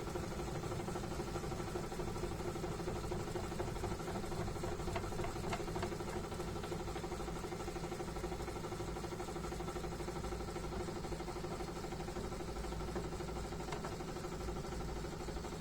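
Sanyo top-loading pulsator washing machine in its spin cycle, motor and tub running with a steady hum.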